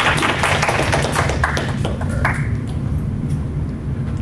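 Audience applauding in a lecture hall, dying away about two seconds in and leaving a few scattered claps, over a steady low room hum.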